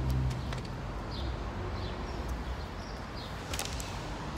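Outdoor ambience: a steady low rumble with a few faint, short bird chirps and an occasional click.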